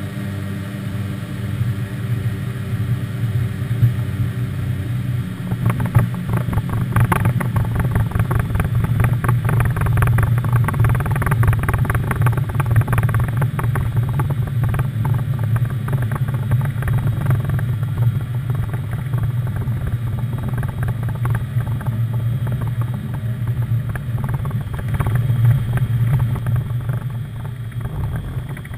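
Piper PA-31-350 Navajo Chieftain's twin turbocharged six-cylinder engines running at low power, heard from inside the cockpit as a steady low drone. A dense buzzing rattle rides over it and grows strong about six seconds in, which the uploader puts down to vibration in the camera mount.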